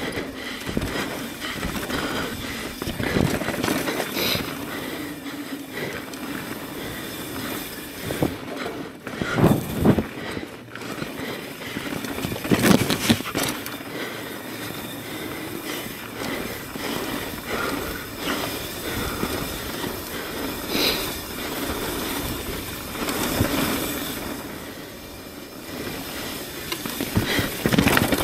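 Mountain bike being ridden over a dirt trail: steady rolling and rattling noise, broken by heavy thumps about nine and thirteen seconds in and again near the end.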